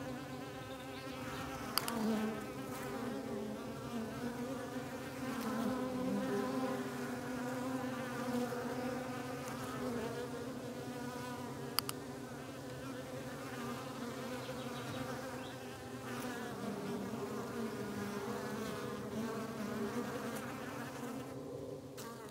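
Many bees buzzing together in a steady, droning hum.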